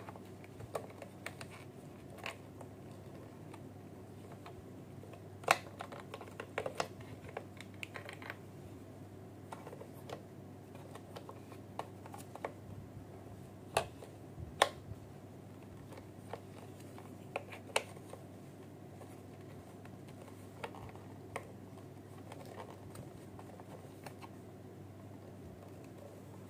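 Hands handling a plastic bazooka bubble-gun toy and its packaging: scattered light clicks and taps, a few sharper ones about five to seven and fourteen seconds in, over a steady low hum.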